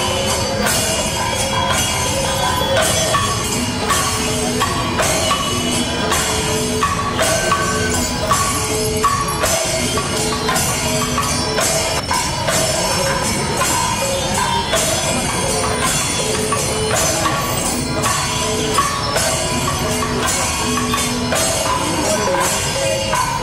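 Music: a melody of short held notes over a steady beat of jingling hand percussion.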